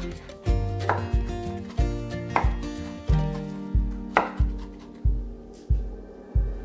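Large kitchen knife chopping pecans on a wooden cutting board, with sharp chops standing out, over background music with a steady beat. The chopping stops about two-thirds of the way through while the music goes on.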